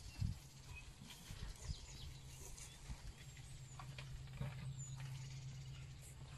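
Elephant feeding close by: a few low thuds and rustles in the first two seconds, over a steady low hum from an idling vehicle engine, with a few faint bird chirps.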